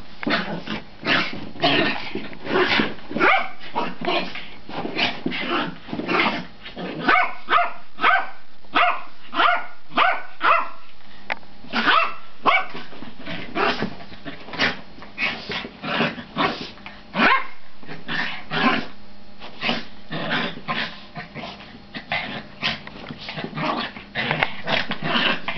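Two small terriers play-fighting, barking and growling in rapid, short yaps, several a second. It is rough play, not a real fight.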